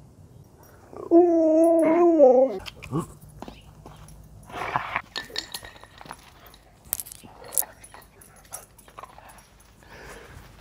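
A husky gives one drawn-out, wavering vocal 'talk', a howl-like moan of about a second and a half starting about a second in, answering the owner's scolding. Softer scuffs and clicks follow as the dog moves about.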